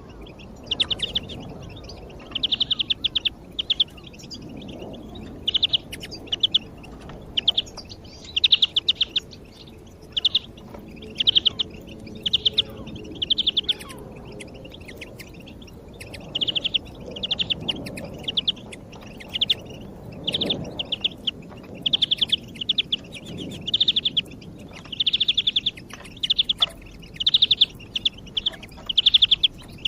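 European greenfinch singing: short, rapid trills repeated one after another, with a pause of about two seconds midway.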